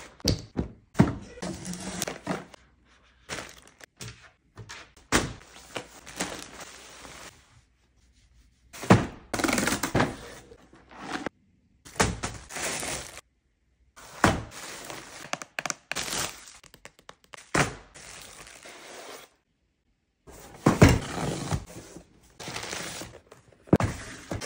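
Parcels being unpacked by hand on a wooden table: plastic bags and a bubble mailer rustling and crinkling, and cardboard boxes knocking down on the tabletop with thunks. The sounds come in separate bursts, with several short, sudden silences between them.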